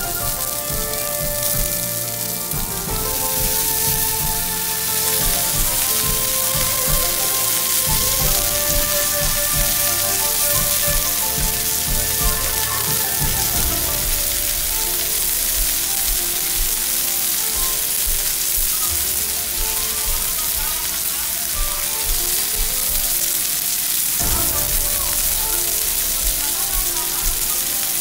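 Ribeye steak sizzling on a hot stovetop griddle, a steady frying hiss throughout. Background music with held notes plays under it, clearer in the first half.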